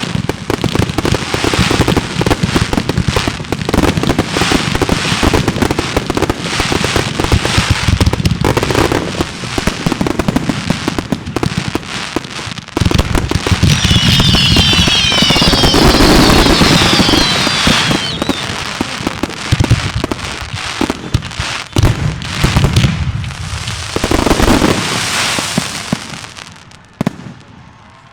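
Fireworks finale: a rapid, continuous barrage of bursts and crackling, with a cluster of high whistles sliding in pitch about halfway through at the loudest point, then dying away near the end.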